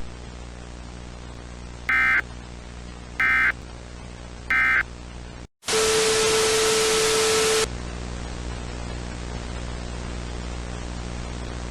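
Three short, identical bursts of EAS data tones, about a second and a half apart, marking the end of an emergency alert message over a steady hiss and mains hum. They are followed by a brief cutout and then a loud two-second burst of static with a steady low tone in it.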